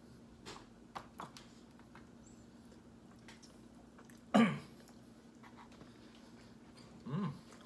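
A man eating: a few faint clicks of a fork and mouth sounds, then a short, loud throat sound about halfway through and a murmured "hmm" near the end, over a steady faint hum.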